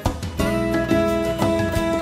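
Instrumental background music, with a new note struck about every half second.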